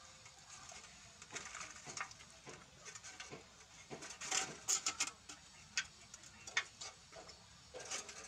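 Puppies suckling from their mother: a run of irregular short smacking clicks, thickest around the middle.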